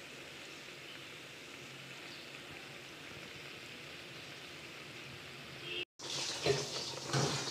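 Sugar syrup with apple pieces simmering in a pan, a faint steady bubbling. About six seconds in, after a short break, the syrup is boiling hard, with louder, crackling bubbling.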